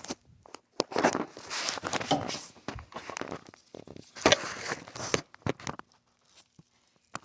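Irregular metallic scraping and knocks from a 10-pound slide hammer being worked by hand to pull a front wheel hub bearing.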